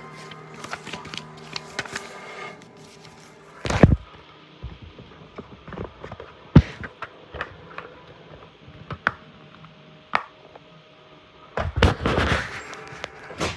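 Handling noise: scattered knocks and thumps with rubbing, the loudest knock about four seconds in and a longer rubbing burst near the end.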